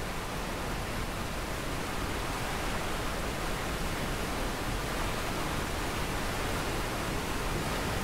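Large waterfall in flood, heavy muddy water pouring down a rock face: a steady rushing noise that grows slightly louder.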